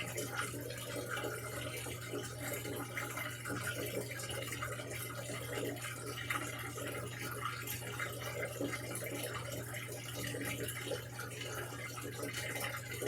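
Samsung washing machine running, with water rushing and splashing steadily in the drum over a constant low hum.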